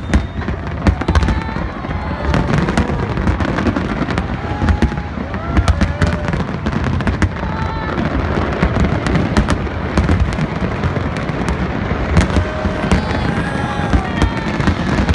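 Fireworks display going off: a dense run of bangs and crackles over a continuous low rumble, with crowd voices among them.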